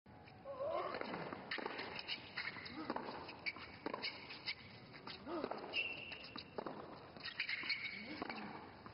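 Tennis rally on a hard court: the ball struck by racquets and bouncing, with players' footsteps between shots, as a string of sharp knocks spread through the whole stretch.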